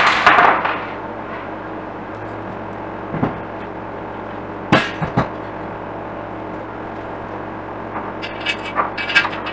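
Clatter and knocks of a metal table frame and loose screws being handled on an upturned acacia wood tabletop. There is a loud clatter at the start, a few separate knocks in the middle, and a quick run of small metallic clinks near the end.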